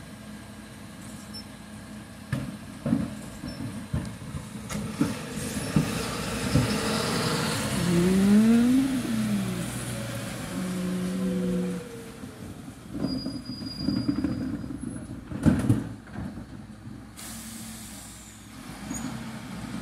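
Mercedes-Benz refuse collection lorry's diesel engine running as it moves up the street, its pitch rising and falling about a third of the way in. Scattered knocks and a cluster of loud clanks come near the end, as a wheelie bin is brought to the rear bin lift.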